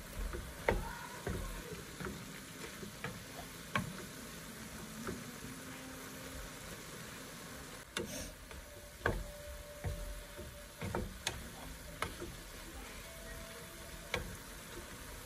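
Sliced snake gourd frying in oil in a pan with a steady sizzle, while a wooden spoon stirs it, knocking and scraping against the pan in irregular clicks.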